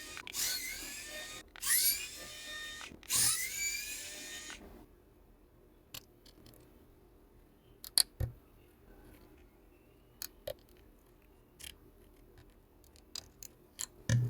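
Small electric precision screwdriver whirring in three short runs, backing out the laptop's tiny motherboard screws. Then scattered light clicks of small screws and metal parts being handled.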